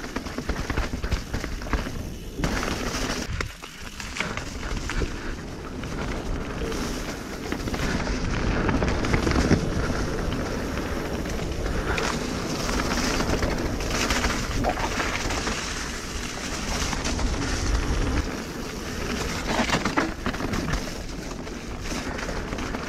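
Canyon Spectral full-suspension mountain bike rolling fast down a wet, leaf-covered dirt trail: tyres on soaked leaves and mud, with steady wind noise on the action camera's microphone and a few knocks and rattles from the bike over bumps.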